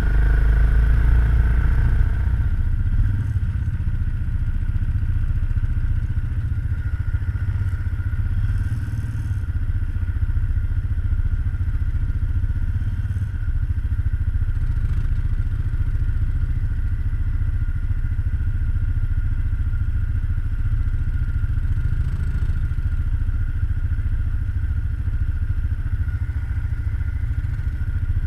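ATV engine running steadily at low trail speed, a constant low rumble with a steady high whine over it. A few knocks and clatters come through as the machine crawls over rocks.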